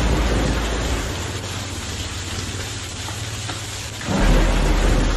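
Hailstorm with heavy rain pelting wet paved ground: a dense, steady patter. A deep rumble swells at the start and again about four seconds in.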